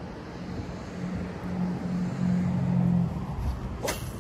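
A low motor hum on two steady pitches, loudest from about a second to three seconds in, then stopping. A single sharp click comes near the end.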